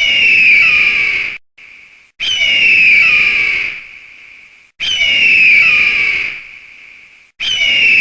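Eagle screech: a loud, high call falling in pitch, repeated about every two and a half seconds, each call lasting about a second and a half and trailing off. The repeats look identical, like a looped recording.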